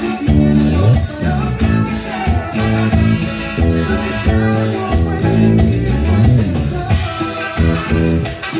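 Latin dance music played loudly, with a steady bass line under chords.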